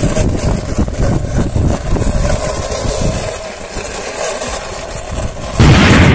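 Plastic toy ambulance pushed by hand along a rough concrete wall, its wheels rolling and rattling with a continuous rumble. It surges louder about five and a half seconds in.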